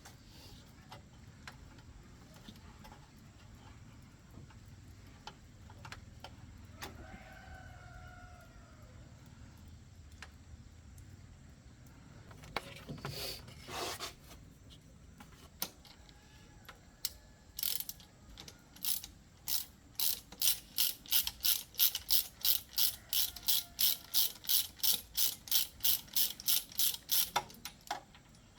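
Hand ratchet wrench being worked: scattered clicks and a short scrape at first, then a fast, even run of ratcheting strokes, about three to four a second, that stops shortly before the end.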